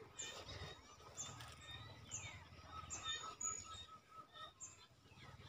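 Faint birdsong outdoors: short high chirps repeating about once a second, over a quick run of pulsed lower notes and a few falling whistles.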